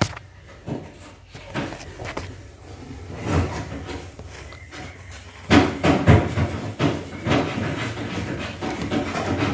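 Irregular knocks, clunks and rattles, with the loudest run about halfway through. These are the sounds of parts or tools being handled while a semi-automatic washing machine's spin dryer is worked on.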